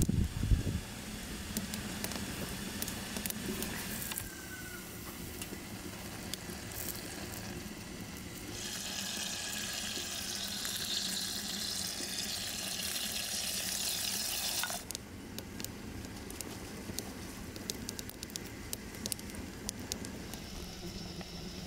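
Food cooking on a stove top, with a steady hiss of sizzling or boiling that starts about eight seconds in and cuts off abruptly about six seconds later. Scattered light ticks come and go throughout.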